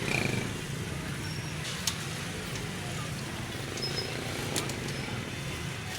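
Street-stall background: a steady low rumble like passing traffic, with a few sharp clicks and short metallic clinks.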